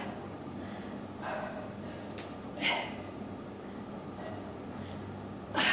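A woman's sharp, effortful breaths while lifting dumbbells: three short exhales spaced a second or more apart.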